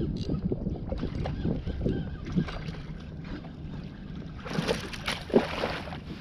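Wind buffeting the microphone and water washing against a kayak's hull, with a louder rush of noise and a sharp knock about five seconds in.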